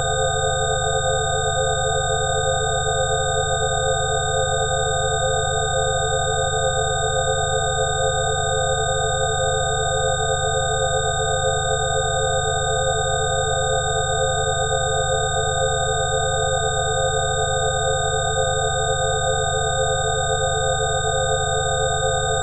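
A 'healing frequency' track: a steady electronic drone of several pure sine tones held at fixed pitches, with a low hum beneath and a slight wavering in the middle tones.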